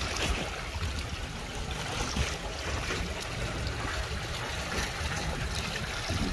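Muddy rainwater runoff pouring over a concrete edge into a pool, a steady rushing and splashing of water with a low rumble underneath.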